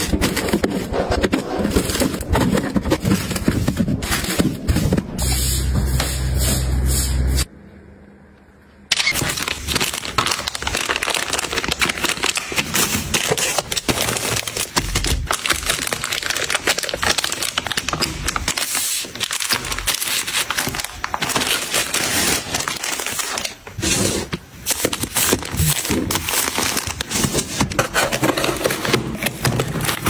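Plastic packaging crinkling and rustling as wrapped items are handled and put away, with many small clicks; the sound drops away briefly about eight seconds in.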